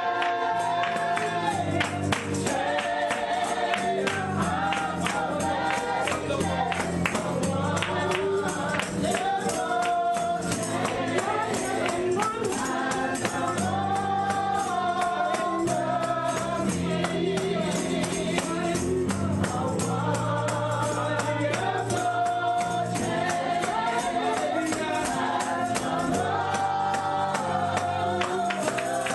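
Live gospel music: voices singing together over a steady bass line, with a tambourine shaken and struck in a fast, steady beat.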